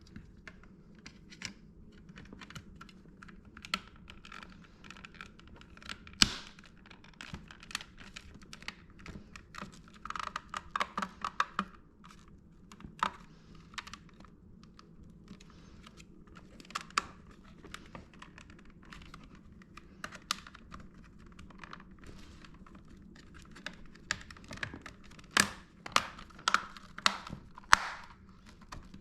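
Plastic parts of a Shark Rotator vacuum hose and handle being handled and fitted together: scattered clicks, taps and knocks, with a quick run of clicks about ten seconds in and several sharper knocks near the end.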